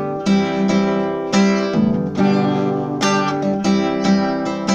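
Nylon-string classical guitar strummed in a rhythmic pattern of chords, each stroke ringing on into the next.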